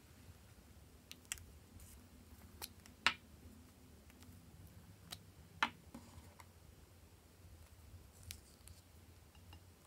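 A few sharp plastic clicks and pops, the loudest about three seconds in and another a little before six seconds, as the snap-on caps are pulled off small plastic lipstick tubes and handled.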